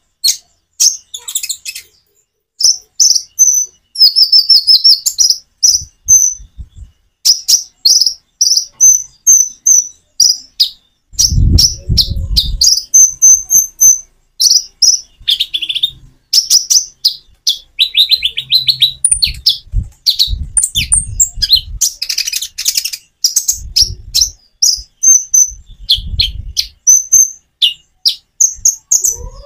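Kolibri ninja (a sunbird) singing: rapid runs of short, high twittering chirps broken by brief natural pauses, with a few low thuds underneath.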